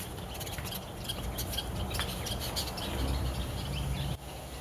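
Birds chirping in short calls over a low rumble of background noise; no engine running.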